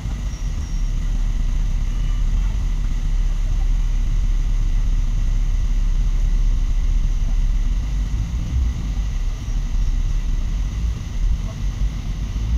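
Steady low rumble of a moving bus, its engine and road noise heard from inside the passenger cabin.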